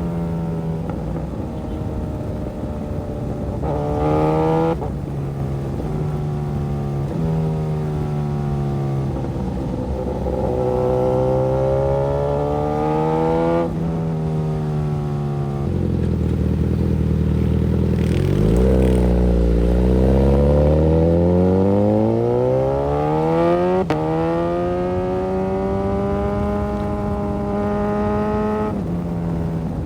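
Suzuki GSX-S1000's inline-four engine pulling through the gears. Its pitch climbs in each gear and drops at each upshift, several times. About two-thirds of the way through, a deep low rumble gives way to a long, steady rise in revs under hard acceleration.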